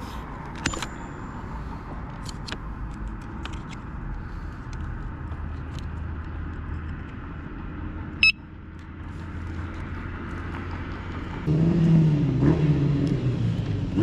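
Ebike battery connector plugged back in by hand, with small clicks and one sharp snap about eight seconds in, as the battery is reconnected to reset the BMS after an over-current cut-out. A steady low background rumble runs underneath.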